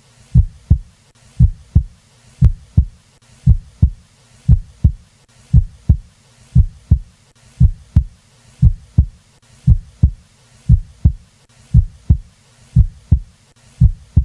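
Recorded heart sounds heard by auscultation: a steady lub-dub, one pair of low thuds about once a second.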